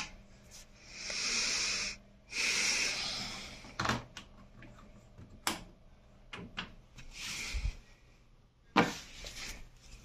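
Clicks and knocks from hands working an Indesit washing machine's door and control-panel buttons, the loudest knock near the end. Two short hissing rushes, each about a second long, come in the first few seconds.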